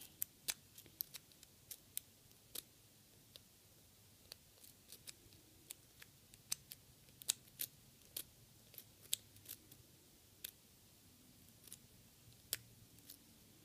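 Faint, irregular clicks and ticks of a Nessie lock pick raking the pins inside the keyway of a Yale 110/40 brass padlock, a few per second.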